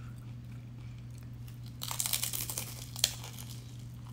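Crinkling and crunching as a fried crab rangoon and its small plastic sauce cup are handled and bitten into. There is a dense patch of crackling about two seconds in and one sharp crack about a second later.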